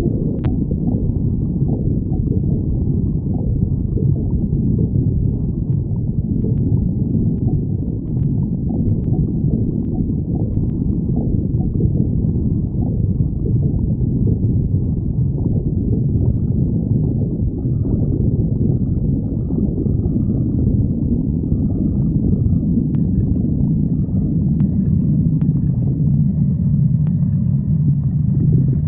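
Stomach growling: continuous, loud low rumbling and gurgling, with a few faint clicks here and there.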